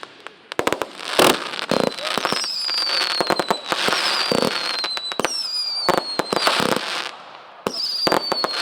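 Consumer fireworks going off: a rapid series of sharp bangs and crackling, with several whistles that fall slowly in pitch.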